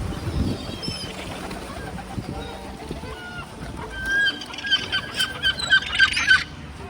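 Birds calling by the water: scattered faint chirps, then about four seconds in a gull breaks into a fast run of about a dozen sharp, repeated calls. A brief low rustle comes at the start.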